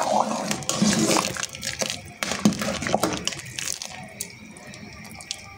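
Steel spoon stirring a pot of thick soup, scraping and clinking against the pot with the liquid sloshing. The stirring is irregular and dies down after about four seconds.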